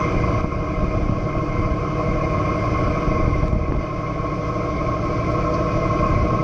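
A boat's engine running steadily, a low rumble with a steady whine above it.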